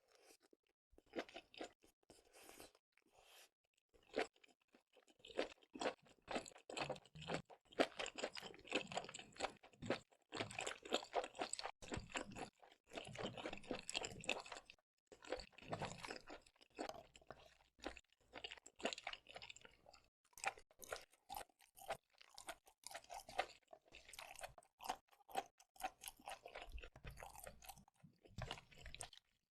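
Close-miked chewing and biting of seafood, wet and crunchy, in quick irregular bites with a few short pauses.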